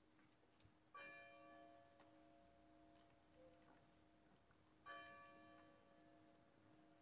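A church bell tolling faintly to call to prayer: two strokes about four seconds apart, each ringing on and fading away.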